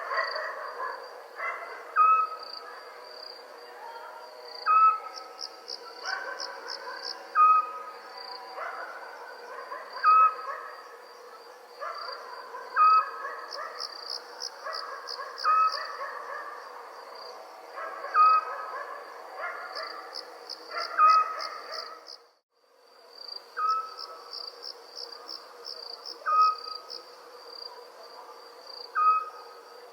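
Crickets chirping in a steady high trill that swells into pulsed bursts, with a short call from a small owl repeated every two to three seconds. Everything cuts out briefly about 22 seconds in, then resumes.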